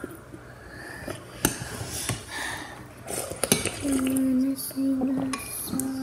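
A spoon clicking and clinking against a bowl while noodles are eaten, with a few sharp taps. From about four seconds in, a child hums three short, level notes.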